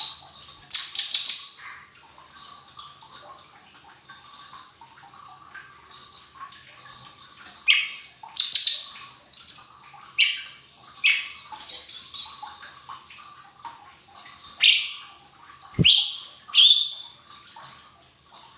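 Cucak ijo mini leafbird calling in sharp, quick chirps, two near the start, then a lively run of about a dozen from about eight seconds in. A faint steady whine runs underneath, and there is a single low knock near the end.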